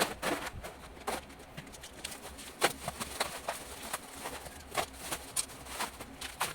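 Parcels and packaging being handled: scattered clicks, knocks and rustles, a few a second, with one sharper knock near the middle.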